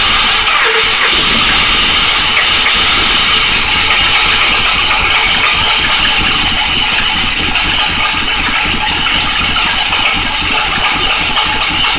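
Swapped-in Ford Fusion 3.0 V6 engine running rough just after its first start, heard close up in the engine bay with a steady hiss over an uneven low pulsing. It is not running well, stale gas in the tank and the engine computer still unadapted to the engine.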